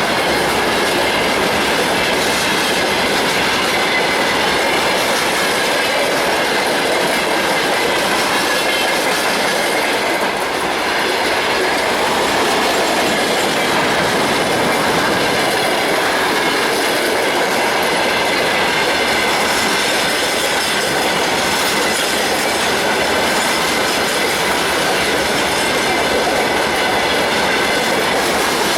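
Freight train of a VL10 DC electric locomotive rolling past steadily: a continuous rumble and clatter of wagon wheels on the rails, with a thin high wheel squeal running through it.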